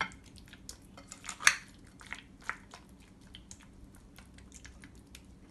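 Metal spoon clinking and scraping against a glass bowl while stirring chicken pieces in a yogurt marinade: a run of light, irregular clicks, loudest about a second and a half in.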